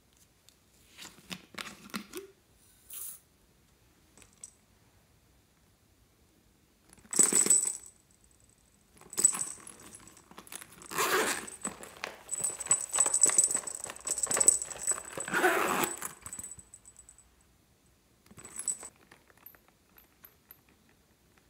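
Small hard pieces rattling and clinking inside plastic novelty cases as they are handled and shaken, in several bursts; the longest runs from about nine to seventeen seconds in.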